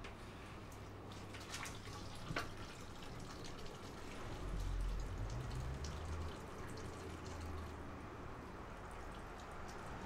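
Wet, dripping liquid sounds from a meal of soupy spicy hot pot, with a few sharp clicks about two seconds in and a low rumble in the middle.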